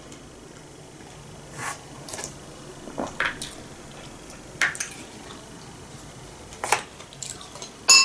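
Scattered light clinks of a metal spoon against a glass bowl, with soft eating sounds between them.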